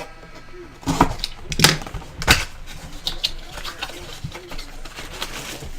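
Trading cards, packs and plastic card holders being handled: a run of sharp clicks and rustles, loudest in the first two and a half seconds, then lighter ones.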